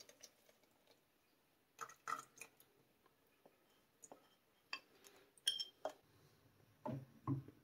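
Plastic spoon and glass bowl knocking and scraping against a nonstick saucepan as ground figs are poured into wet semolina and stirred in: faint, scattered clicks and knocks, with a couple of louder knocks near the end.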